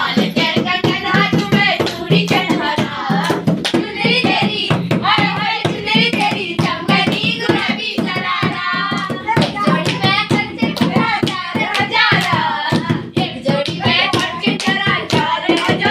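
People singing a song together while clapping their hands in a steady rhythm to accompany a dancer.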